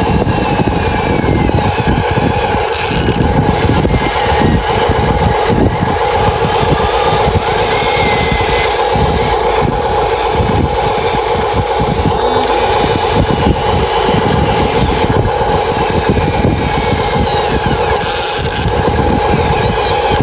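Excavator running and working, a loud steady mechanical whine that holds a constant pitch.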